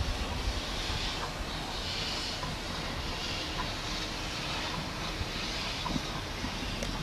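Steam locomotive working slowly past with a train of wagons: slow, regular exhaust beats about once a second over a steady hiss and rumble.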